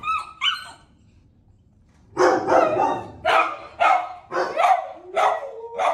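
A dog gives a short whine, then after a pause barks in a quick series of about seven loud barks, roughly two a second. Near the end a long steady whine starts.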